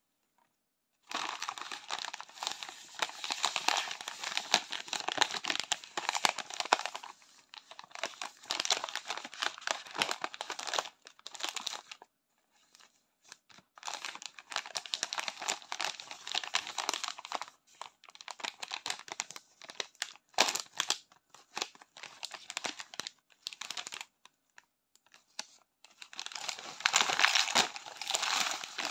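Foil-lined plastic snack bag of shrimp chips crinkling in long stretches as it is handled and torn open, with scattered crackles in the middle. Near the end there is a louder rush of rustling as the chips slide out of the bag into a bowl.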